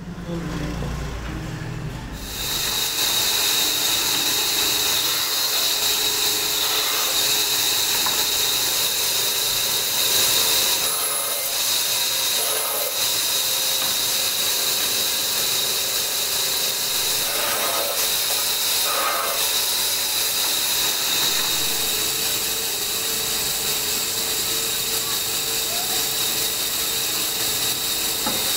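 Woodworking machinery running steadily with a constant high hiss. A few short louder bursts come in the middle as wood is cut on the band saw.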